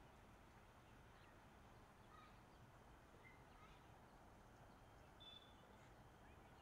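Near silence: faint steady outdoor background with a few brief, faint bird chirps.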